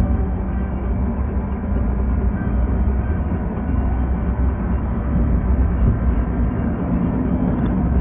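Car driving on asphalt, heard from inside the cabin: a steady low rumble of tyres and engine with no changes.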